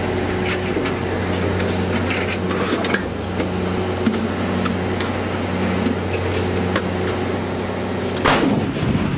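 A vehicle engine runs steadily with scattered knocks and clanks, and one sharp, loud bang comes just after eight seconds in.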